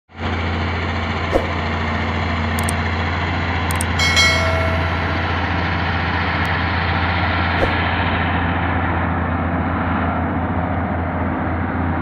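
Caterpillar motor grader's diesel engine running steadily as the machine works the dirt, a low, even drone. A few sharp clicks come in the first four seconds, followed by a short ringing chime about four seconds in.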